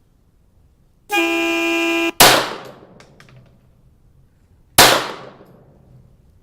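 A steady electronic beep lasting about a second, then two .22 rimfire pistol shots from a CZ-75B Kadet about two and a half seconds apart, each with a short ringing tail and faint clicks after the first.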